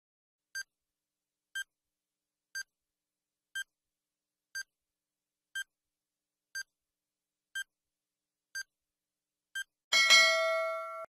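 Quiz countdown timer sound effect: ten short high beeps, one a second, then a louder ringing chime about ten seconds in that marks time up, lasting about a second.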